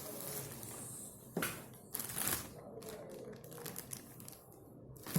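A tripod being handled as it is pulled out of its carry bag: scattered light clicks and knocks of its parts over a soft rustle, with a louder knock at the end.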